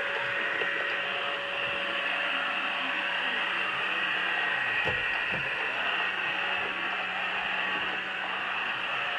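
PureClean robot vacuum running, a steady whir from its fan and brush motors with a faint low hum beneath. A couple of brief low thumps come about five seconds in.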